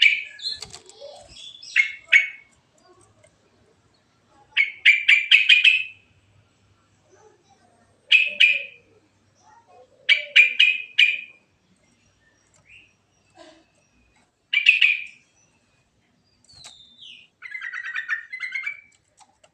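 Yellow-vented bulbul singing: short bubbly phrases of quick chirping notes, repeated every few seconds with short pauses between.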